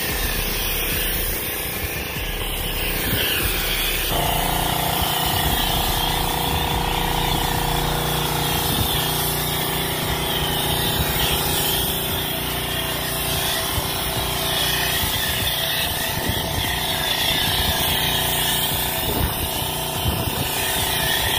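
Pressure washer running steadily while its foam cannon sprays snow foam onto a car: a hiss of spray over a steady motor hum, whose tones shift about four seconds in.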